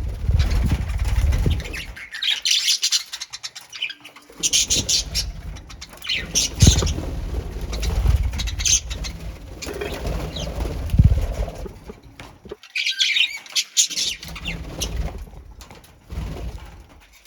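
Caged pet birds flapping their wings, with bouts of short high chirps that come in clusters every few seconds.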